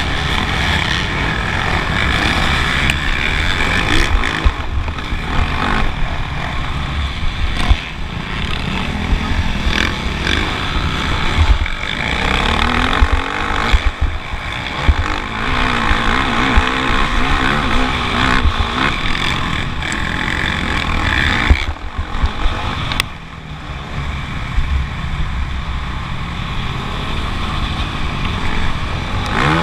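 Motocross bike engine running hard during a race, its pitch rising and falling with the throttle through corners and straights, over heavy wind rumble on the microphone. It eases off briefly about two-thirds of the way through.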